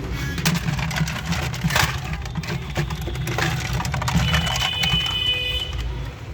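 Scattered clicks and knocks, as from a plastic toy gun being handled, over a steady low rumble. About four seconds in, a thin high tone sounds for a second and a half.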